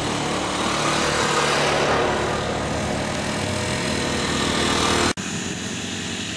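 Quad bikes (ATVs) driving past close by on a sandy track, their small engines running loud. A brief dropout comes about five seconds in, after which the engine sound is quieter.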